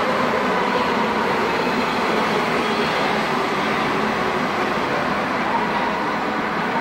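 Nuremberg U-Bahn metro train pulling into an underground station along the platform: a steady rumble of wheels on rail and running gear, with a faint whine that falls in pitch near the end as the train slows.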